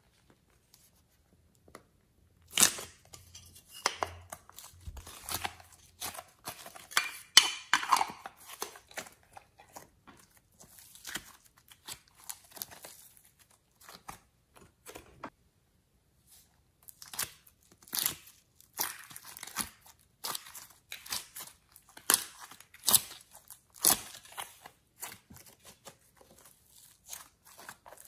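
Soft modelling clay being squeezed, stretched and pulled apart by hand, giving irregular crackling, tearing snaps. There is a short lull about halfway through before the crackling resumes.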